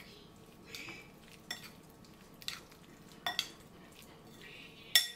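Metal spoon stirring a wet marinade of chopped tomatoes, coriander and spices in a glass mixing bowl, scraping and clinking against the glass about every second. The loudest clink comes near the end.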